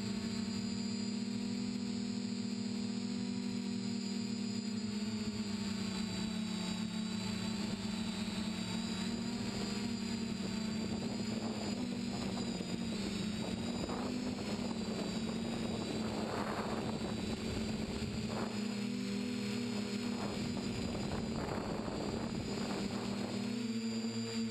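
TBS Discovery quadcopter's electric motors and propellers whining steadily in flight, the pitch shifting with throttle. Through the middle stretch there are bursts of rushing noise.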